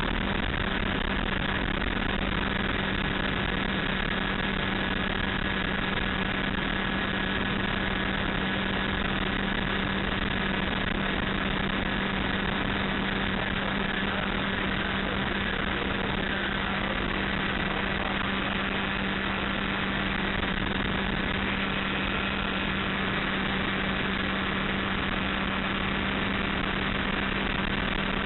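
Light aircraft's engine and propeller running steadily in flight, heard from inside the cockpit: a constant drone with a strong deep hum.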